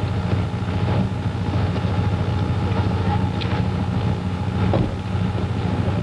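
A steady low rumble.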